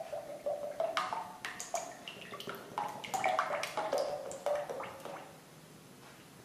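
Cooking oil poured from a plastic bottle into a wok (kadhai): an irregular run of small splashes and glugs that stops about five seconds in.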